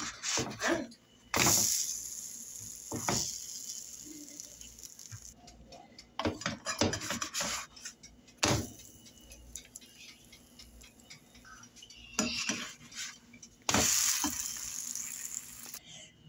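Pancake batter sizzling in a non-stick frying pan, with a utensil clicking and knocking against the pan several times. The sizzle surges suddenly twice, about a second in and again near the end, the second time as the pancake is turned onto its uncooked side.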